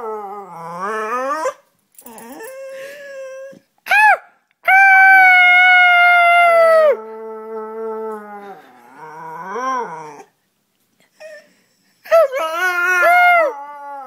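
Dog howling in a run of howls, some short, rising and falling, and one long, steady howl held for about two seconds about five seconds in.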